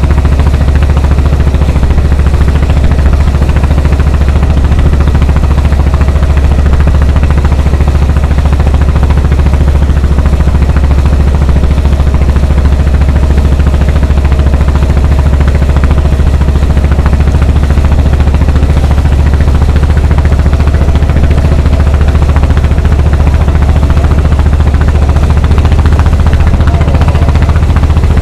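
Fishing boat's engine running steadily, a loud, deep drone that does not change.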